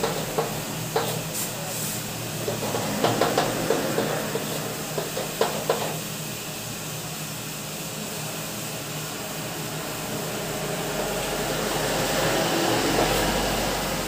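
Chalk tapping and scraping on a blackboard as a line of an equation is written: a run of short sharp clicks in the first half, quieter after that, over a steady background hiss.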